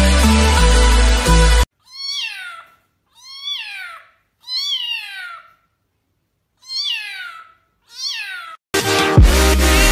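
A cat meowing five times, each meow rising then falling in pitch, with silent gaps between them. Electronic dance music plays for the first couple of seconds and comes back loudly near the end.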